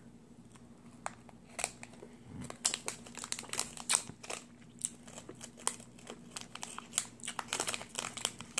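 Plastic snack wrapper crinkling as it is handled, a run of irregular sharp crackles.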